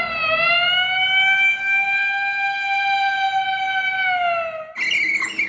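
Emergency-vehicle siren sounding one slow wailing tone: it dips in pitch, swells back up and holds, then sinks away near the end, where a different sound cuts in.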